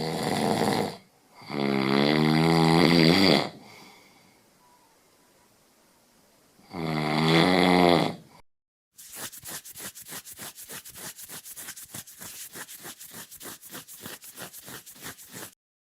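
A person snoring: three long, pitched snores about five seconds apart. It is followed by fast, even scratching strokes, about five a second, which stop suddenly.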